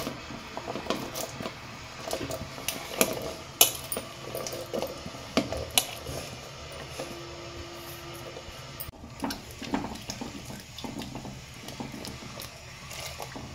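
Chopped bottle gourd and sweet potato pieces slid and pushed off a plate into a steel pot of jaggery syrup, with irregular clinks of the plate on the pot rim and small splashes, then a steel ladle clinking against the pot as it stirs.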